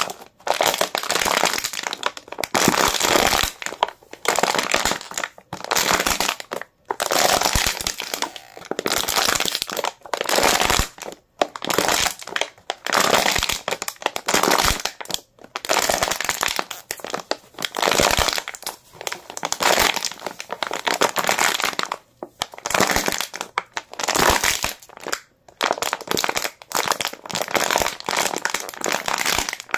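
A thin plastic water bottle being squeezed and crushed by hand over and over: repeated bursts of crinkling and crackling plastic, each about a second long, with brief pauses between.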